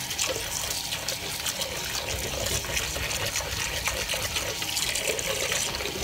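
A wet, soapy mesh dishcloth scrubbing the inside of a crock pot insert in a kitchen sink, with water sloshing: a steady wet rubbing as dried-on food and barbecue sauce are worked loose.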